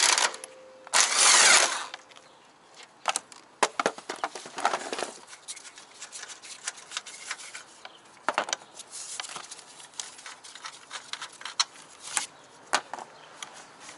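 DeWalt cordless impact wrench running in two short bursts in the first two seconds, loosening the upper control arm bolt. After that, scattered light clicks and knocks of metal and plastic parts being handled.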